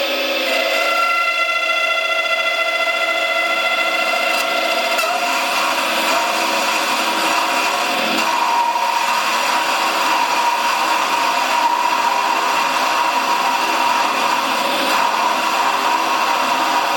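A machine tool cutting, a steady scraping noise with a held whine. The pitch of the whine changes about five seconds in, and a new steady tone joins about three seconds later.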